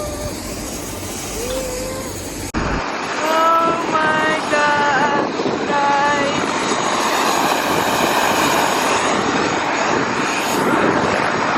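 Helicopter engine and rotor noise, a loud steady rush, with voices calling out briefly a few seconds in.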